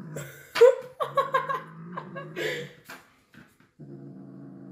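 A woman laughing and giggling. Near the end a steady low hum comes in.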